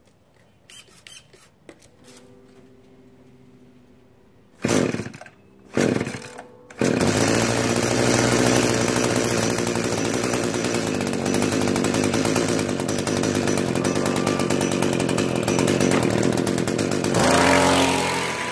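Small 25cc Echo two-stroke string-trimmer engine on an RC truck being started: two brief bursts, then it catches and runs steadily, rising in pitch near the end.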